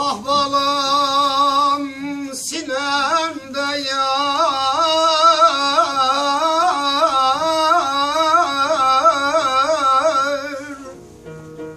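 A man singing a Turkish folk song in long, wavering, heavily ornamented held notes, breaking briefly for breath about two seconds in.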